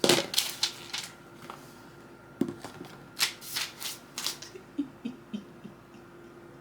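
A new MacBook Air's packaging being handled and opened: quick rustles and crinkles with a few sharp clicks, thinning out after the first few seconds.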